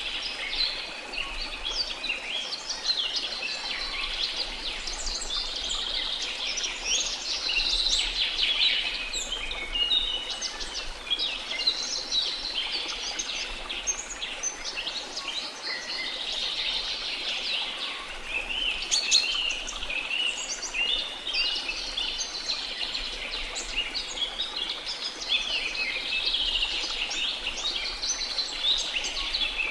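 A dense chorus of many small birds chirping and twittering continuously, over a soft, steady wash of sea.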